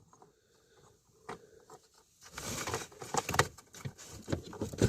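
Hands handling plastic HVAC parts under a dashboard: a single small click, then from about two seconds in a run of irregular light clicks and rustling as the blend door gear and actuator are worked into place.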